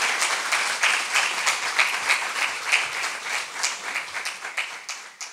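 Audience applauding, the clapping gradually thinning and growing quieter, then fading out near the end.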